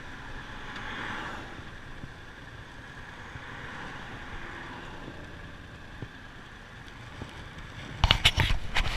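Yamaha FZ-07 motorcycle ridden at low speed, its parallel-twin engine muffled under steady wind noise on the microphone as the bike slows to a stop behind traffic. About eight seconds in, a sudden run of loud, uneven knocks and gusts hits the microphone.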